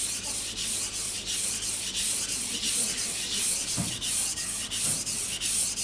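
A steel kitchen knife blade stroked back and forth on a wet Japanese water stone, a gritty scraping hiss at about three strokes a second as it grinds in the stone's wet slurry.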